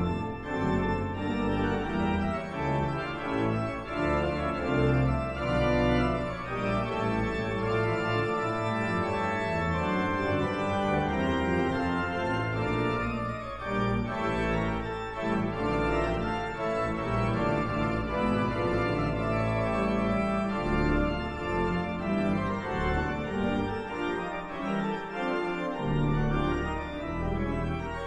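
C.B. Fisk concert pipe organ playing continuous polyphonic music, with hands on the manuals and feet on the pedals holding sustained bass notes under the moving upper voices.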